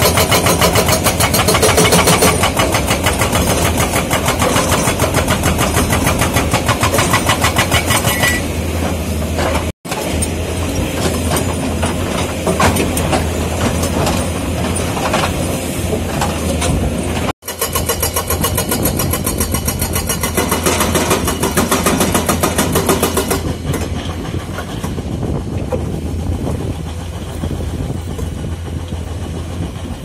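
Komatsu JTHB210 hydraulic breaker on a Komatsu PC210 excavator hammering rock in a rapid, steady rattle of blows over the running diesel engine. The sound cuts off abruptly twice and is quieter in the last few seconds.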